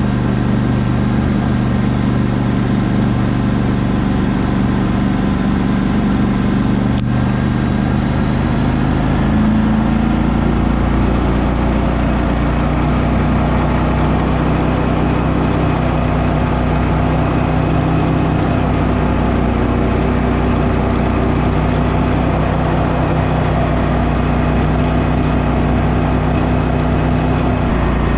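Small boat motor running at a steady cruising speed, with the hum of water spray along the hull. Its pitch changes once, about a third of the way through, as the engine speed shifts, then holds steady again.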